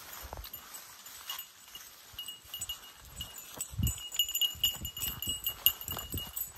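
Footsteps along a woodland trail, with gusts of wind buffeting the microphone, the strongest about four seconds in. A bird chirps over and over in the background, more busily in the second half.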